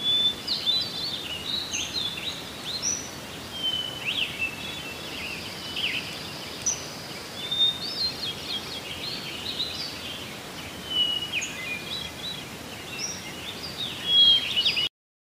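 Wild birds calling and singing: a busy chorus of short overlapping chirps, slurred notes and whistles over a faint background hiss. It cuts off suddenly near the end.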